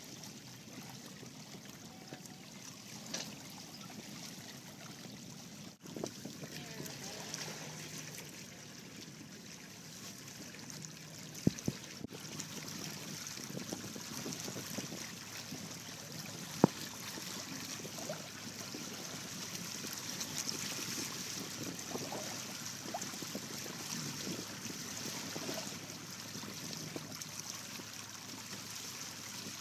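Water sloshing and trickling along the hulls of a Hobie 16 catamaran under sail. A few sharp knocks come near the middle.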